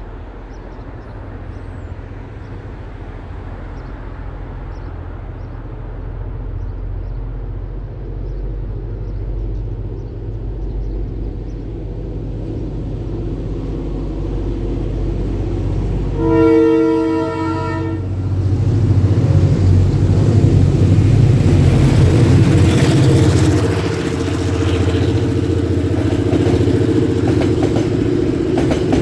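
A pair of New Zealand DC-class diesel-electric locomotives under throttle, DC 4012 running with a carbon trap exhaust fitted, giving a distinctive rumble that builds steadily as the train approaches. About halfway through, a locomotive horn sounds once for about two seconds. The engines then run loud as the train passes.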